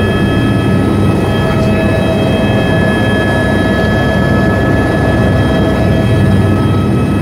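Eurocopter AS350 A-Star helicopter heard from inside the cabin, close to the ground while landing. Its turbine gives a steady whine made of several high whistling tones over a dense low rotor and engine rumble, holding even throughout.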